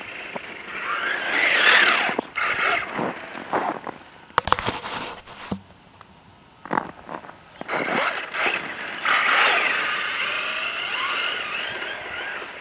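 1/10-scale RC Ford F-150 Raptor truck with a Traxxas VXL brushless motor driving on packed snow. Its motor whine rises and falls in pitch with the throttle, mixed with tyre noise. There are two loud spells, about two seconds in and again from about eight to ten seconds, with sharp clicks near the middle.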